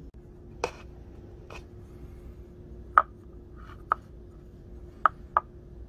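A turned wooden knife handle being handled on a wooden workbench: six short, irregular knocks and clicks, the sharpest about three seconds in, over a faint steady hum.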